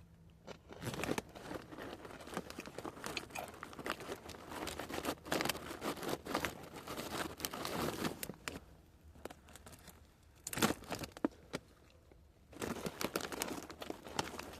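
A crinkly plastic chip bag being handled, crackling and rustling in bouts. It pauses briefly in the middle, with one short sharp burst, then starts again near the end.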